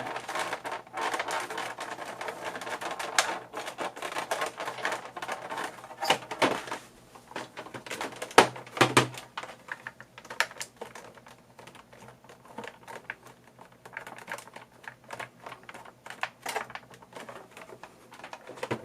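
Unicomp Model M keyboard clacking, its buckling-spring keys struck in a fast run of clicks that thins out partway through, with two louder knocks a little before the middle.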